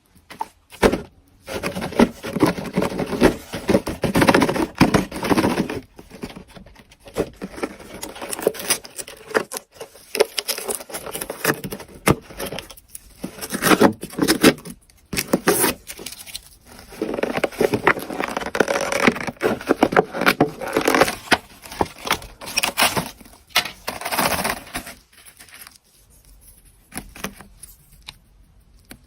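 Meat grinder crushing and forcing items through, an irregular run of crunching, scraping and clicking in bursts with short pauses, dying down near the end.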